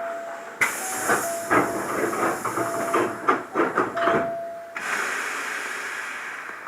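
A Hankyu Kyoto Line commuter train running, heard from inside the car, with a faint steady motor whine. About half a second in, a loud rush of hiss with rapid clattering knocks breaks in, lasts about four seconds and cuts off sharply.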